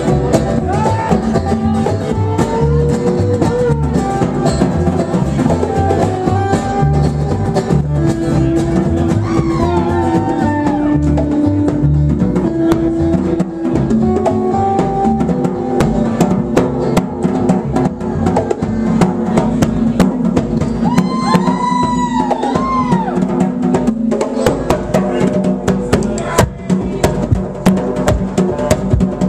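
Live band playing: a guitar lead with notes that bend up and back down, over upright bass and a drum kit.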